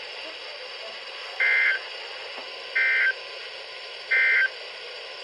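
NOAA Weather Radio SAME end-of-message data bursts: three short, identical squawks about a second and a half apart, signalling the end of the warning broadcast. Steady radio hiss lies under them.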